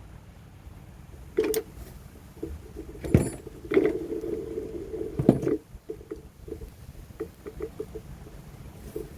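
Hard parts of a snow pusher being handled and fitted together during assembly. There are several sharp knocks and clunks through the middle, then a quick run of light clicks near the end.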